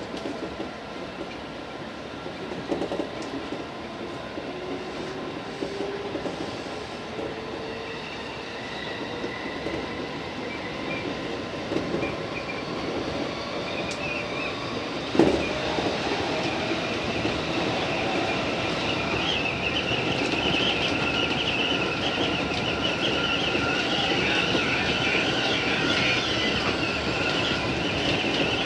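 JR East 205 series electric train running on the rails, with a steady rumble and wheel clatter that grows slowly louder. A high squeal of the wheels strengthens in the second half, and there is a single sharp knock about halfway through.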